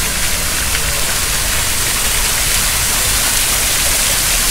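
Fountain water spilling from the sculpture's bowl and splashing steadily into the pool below, a continuous hiss.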